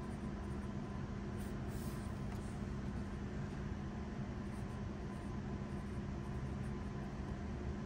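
A steady low hum with even background noise, and a few faint scratches of a pencil on paper near the start.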